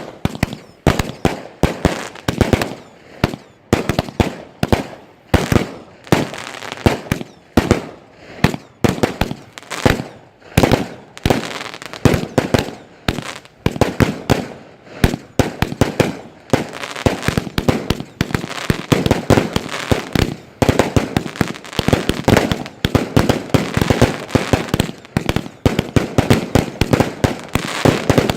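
Two consumer firework cakes, Blowout and Space Inferno, firing together: a rapid, unbroken barrage of shots and bursting bangs, several a second, growing denser from about halfway through.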